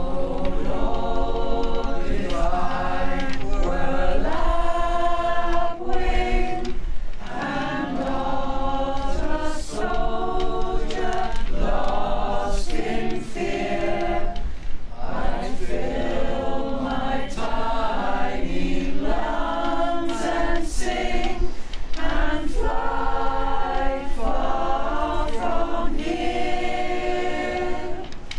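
A choir singing unaccompanied, in sung phrases with short breaks between them.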